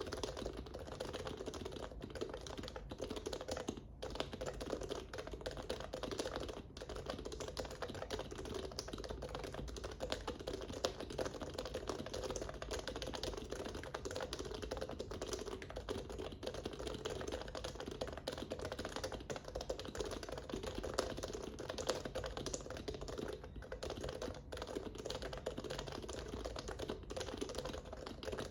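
Fast, continuous typing on a Norbauer Heavy Grail Topre-style keyboard fitted with Deskeys Tiffany 35 g rubber domes, HHKB Pro Classic sliders with lubed rails and OEM-profile keycaps. The keystrokes come in a steady, dense stream, with most of their sound low in pitch.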